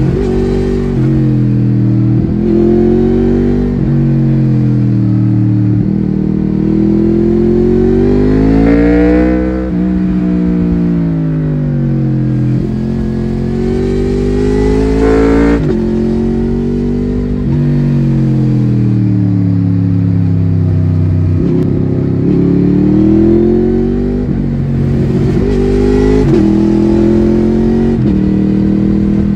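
Honda VFR800's V4 VTEC engine heard from the bike while riding through bends, its pitch climbing on each pull and dropping back as the rider shifts gear or rolls off. The longest climbs come at about nine and fifteen seconds in, and the one at fifteen seconds cuts off sharply.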